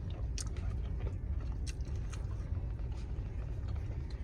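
Close-up chewing and mouth sounds of someone eating boneless chicken wings, with scattered small wet clicks, over a steady low rumble inside a car.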